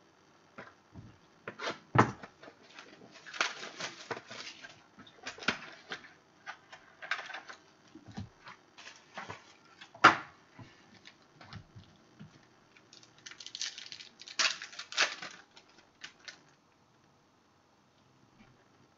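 Trading card packs and cards being handled on a table: bursts of crinkly rustling and scattered sharp taps and clicks, the sharpest about 2 and 10 seconds in.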